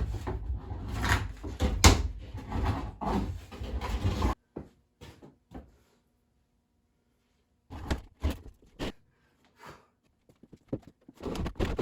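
Background music that stops abruptly about four seconds in. Then comes quiet broken by scattered knocks and thunks of wooden 4x4 lumber and a platform being shifted and bumped.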